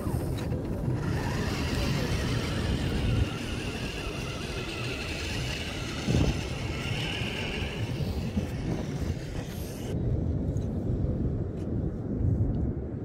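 A radio-controlled model car driving: a motor whine over a steady rumbling noise. The higher sounds drop away suddenly about ten seconds in.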